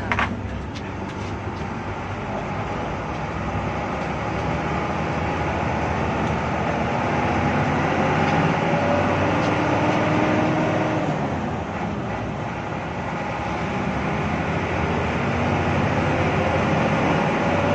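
Hino AK8 bus's six-cylinder turbo-diesel engine heard from inside the cabin, pulling the bus along the road. The engine note builds and rises in pitch as the bus accelerates in the first half, eases off a little past the middle, then builds again near the end.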